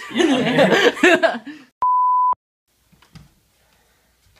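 A loud voice for about a second and a half, then a single steady electronic bleep, a pure tone about half a second long that starts and stops abruptly. This is a censor bleep edited over a word.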